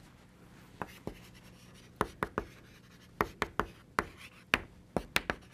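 Chalk tapping and scratching on a blackboard as words are written: a single tap about a second in, then a quick run of sharp chalk taps from about two seconds in.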